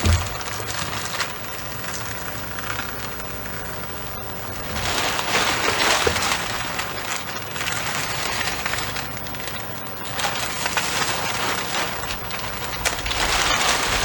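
Synthetic house wrap rustling and crinkling as it is handled and trimmed with a razor knife, louder about five seconds in and again about ten seconds in.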